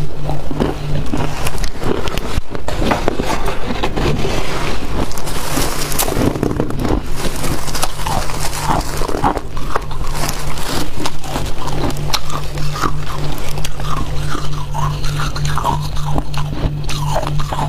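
Crunching bites and chewing of freezer frost, the soft white ice scraped from the inside walls of a chest freezer. There are repeated crisp crunches throughout, with scraping as the frost is gathered.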